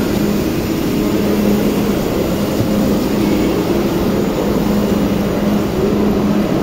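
Steady rumble with a constant low hum from a train running in the station, even in level throughout.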